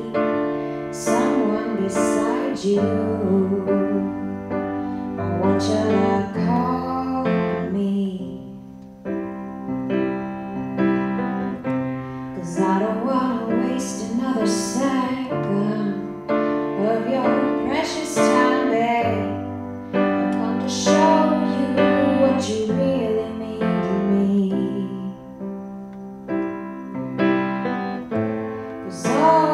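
Grand piano played as a song accompaniment, with a steady bass line under chords, and a woman's voice singing over it in places.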